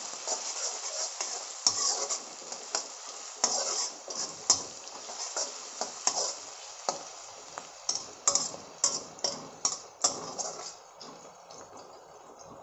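Sliced onions sizzling in oil in a metal kadhai (wok), stirred with a flat metal spatula that scrapes and knocks against the pan many times at an uneven pace. The onions are being fried until they brown.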